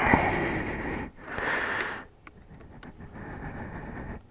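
A person breathing loudly close to the microphone: three noisy breaths or sniffs, the first the loudest.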